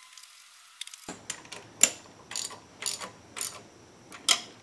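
Hand ratchet with a socket on an extension clicking as it runs a bolt down to fasten a valve-spring-compressor bracket onto the cylinder head. About a second in, sharp clicks start coming in bursts roughly twice a second, the loudest about two seconds in.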